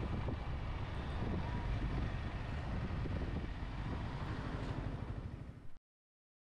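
Motorcycle on the move: engine and wind rushing over the microphone at road speed, a steady rumble and hiss. It cuts off abruptly near the end as the recording is stopped.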